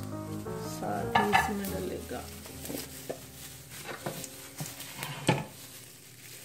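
Cumin seeds sizzling and popping in hot oil in a nonstick pan, stirred with a silicone spatula. A louder knock comes about five seconds in as the pan is shifted on the glass cooktop.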